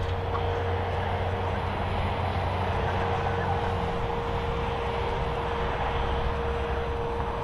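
Heavy machinery running steadily: an asphalt cold milling machine at work, with lorries driving past close by. A steady hum runs through the engine noise.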